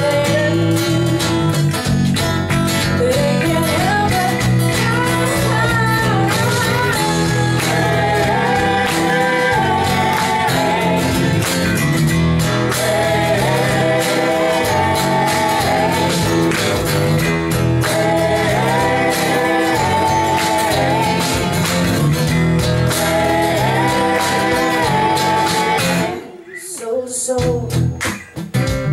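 Live soul-folk band playing: acoustic guitars, electric bass and keyboard with percussion, and a voice singing a gliding melody over them. The band stops together abruptly about 26 seconds in, then comes back in near the end.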